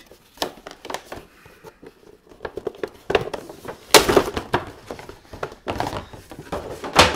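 Cardboard figure box and its clear plastic tray rustling, scraping and crinkling as the figure is worked out of the packaging. The scrapes and crackles are loudest about three to four seconds in and again near the end.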